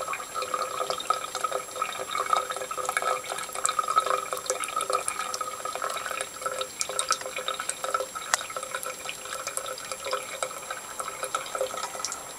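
Water running from a bathroom tap, with a steady trickle and many small, irregular splashes and drips as a cat paws and plays in the stream.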